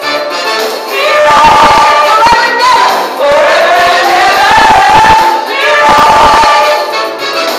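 Women's voices singing a gospel song into microphones, loud and amplified, in held phrases of a second or two with short breaks between them.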